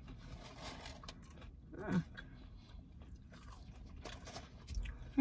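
Faint chewing of thin shoestring french fries, with a short falling vocal 'mm' about two seconds in and another at the very end.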